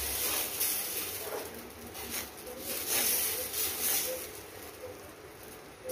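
Dosa batter sizzling on a hot iron tawa as a steel ladle spreads it in circles, the ladle's rounded bottom swishing and scraping across the pan in repeated strokes about every two-thirds of a second.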